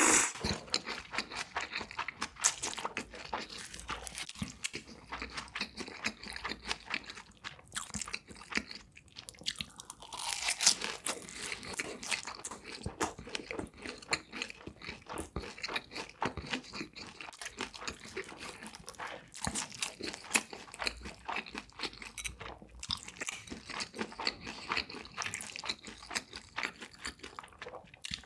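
Close-miked chewing of crunchy food: a steady run of crisp crunches and crackles, with a louder bite right at the start and another about ten seconds in.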